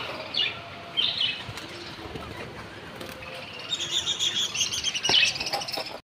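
Budgerigars chirping, with wings fluttering; a few scattered chirps at first, then from about halfway a dense, rapid high chatter of many birds.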